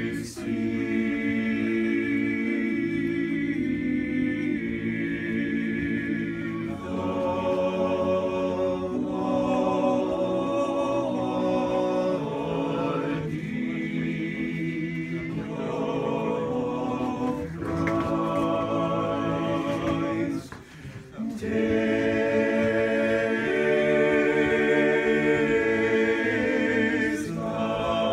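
A cappella vocal octet singing Orthodox liturgical music in slow, sustained chords that shift every second or two. The singers break off briefly about three-quarters of the way through, then come back in together.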